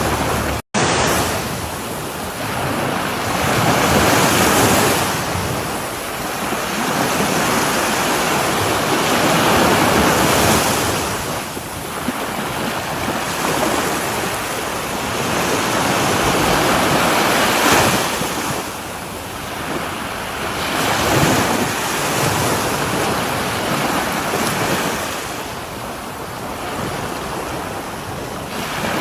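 Sea waves breaking on a shore, the wash swelling and falling away every few seconds. The sound cuts out for an instant just under a second in.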